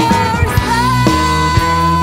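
Live soul-rock band playing: electric guitar, bass, drums and keyboards, with a high note that bends up about half a second in and is then held over the band.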